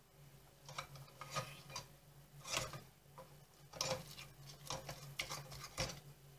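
Metal fork scraping and clinking against the inside of a small stainless saucepan as it stirs a thick, sticky starch slime paste: about a dozen irregular strokes.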